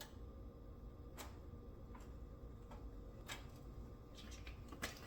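A few faint, isolated clicks, about four spread across several seconds, over a faint low steady hum.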